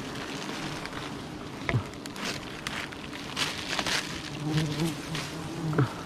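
Wild honeybees buzzing around comb being cut from a tree, with a steady low drone. Twice a bee buzzes close past, its pitch falling. Over this there is scattered crackling and rustling.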